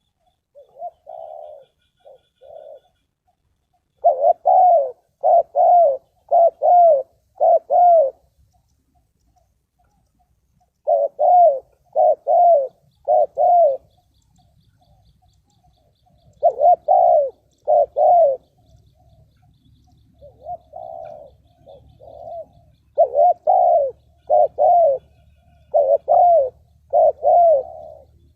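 Spotted doves cooing: repeated phrases of three to five low coos, loud phrases alternating with fainter ones.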